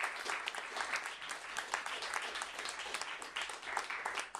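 Small audience applauding, individual claps standing out in the clapping, at the end of a spoken-word poem.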